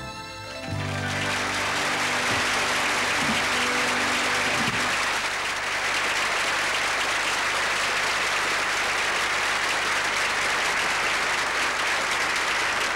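Studio audience applauding steadily, swelling up about a second in as the last notes of the song's musical accompaniment die away.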